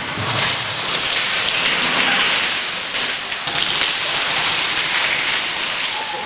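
Airsoft guns firing in rapid bursts, with BBs striking the plywood walls: a loud, dense, continuous crackle of many small hits.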